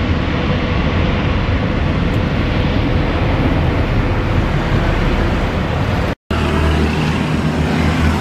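Steady jet engine noise from a twin-engine airliner rolling out on the runway just after landing. About six seconds in the sound cuts off abruptly, then the steady hum of another twin-jet airliner on approach follows, with low droning engine tones.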